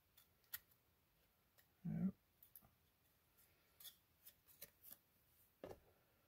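Faint clicks and light scrapes of a baseball card being handled and drawn out to be shown, with a short low hum about two seconds in.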